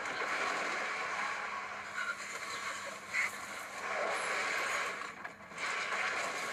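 Steady vehicle noise from a car or street traffic, a constant rush with no distinct events, dipping briefly about five seconds in.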